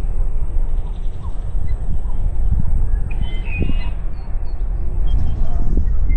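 Outdoor lakeside ambience: a steady low rumble of wind on the microphone, with a few short bird calls, the clearest about three seconds in and brief chirps near the end.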